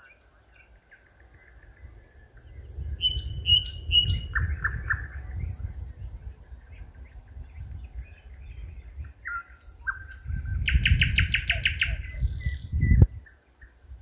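A nightingale singing in phrases broken by pauses: clear held whistles, short dropping notes and a fast rattling run of repeated notes about two-thirds of the way in. Under it is a low, gusting wind rumble on the microphone, and a dull thump comes near the end.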